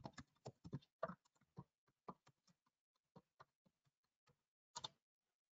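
Typing on a computer keyboard: faint, irregular key clicks, a few a second, with a louder pair of clicks near the end.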